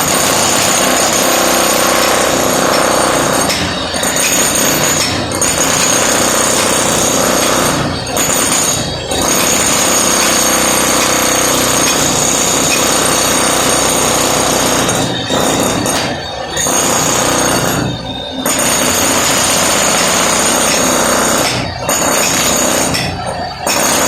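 Electric demolition hammer chiselling into a concrete floor, hammering loudly in long runs with short pauses about nine times.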